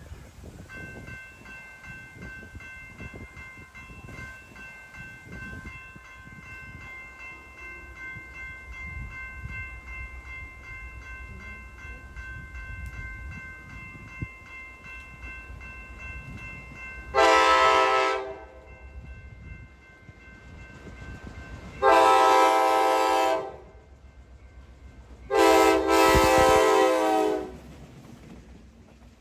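FL9 diesel locomotive leading a passenger train, sounding its air horn three times as it passes close by: a short blast, then two longer ones. Under the horn runs the low rumble of the approaching train, and a faint steady high whine for most of the first two thirds.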